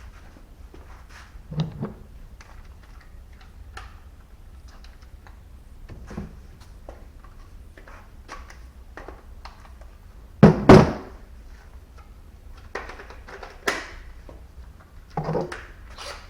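Scattered clicks, knocks and clunks of hands and tools working inside a car door with its handle removed, the loudest a heavy double thunk about ten and a half seconds in.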